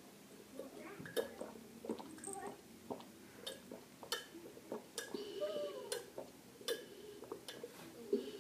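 Milk being drunk from cups: faint gulps and swallows with many small clicks, and a cup knocking now and then.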